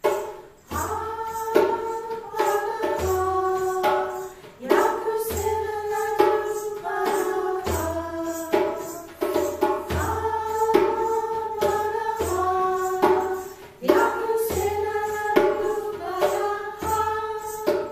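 A small group of women singing one tune together, with percussion keeping a steady beat and a low thump about once a second.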